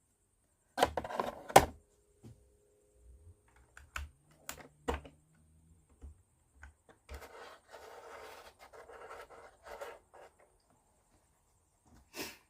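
Small plywood kit parts being handled and pressed together: a few sharp clicks about a second in, scattered light taps, then a stretch of soft rustling and a last click near the end.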